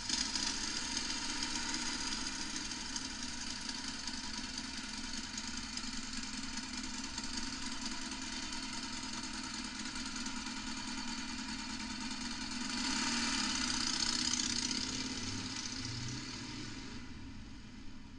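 Sound effect of a Harley-Davidson V-twin motorcycle engine running at idle. It swells louder for a couple of seconds about thirteen seconds in, then fades out near the end.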